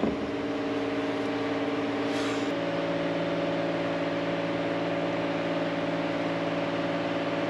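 Steady mechanical hum of a running motor, made of several steady tones; the mix of tones shifts slightly about two and a half seconds in.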